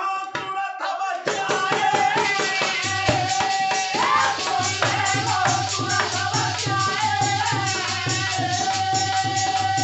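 Folk music interlude: a harmonium holds a long steady note while a jingling hand rattle and a dholak keep a fast, even beat. The full band comes in about a second in, and the deep drum strokes join about three seconds in.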